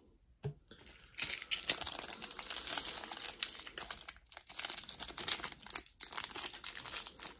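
Plastic trading-card pack wrapper crinkling and tearing as it is opened, in irregular crackly bursts that start about a second in.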